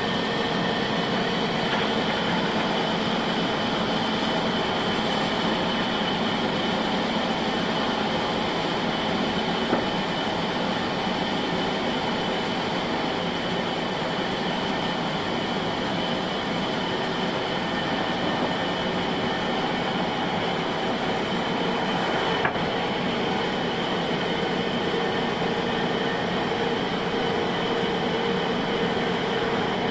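Old bandsaw sawmill running steadily, its blade sawing a log, with a steady high whine over the machine noise. Two short knocks cut through it, one about a third of the way in and one about three quarters through.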